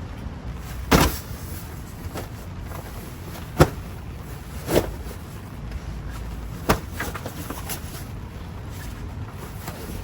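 Four sharp knocks or clunks spaced a second or two apart, over a steady low background noise.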